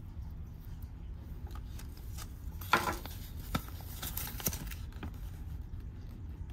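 Folded paper insert leaflet being handled and unfolded: a sharp crackle of paper nearly three seconds in, then light rustling and a few small clicks.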